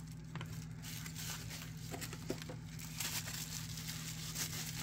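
Faint rustling and crinkling of a knife's packaging and carrying pouch being handled, with a few light clicks and a low steady hum underneath.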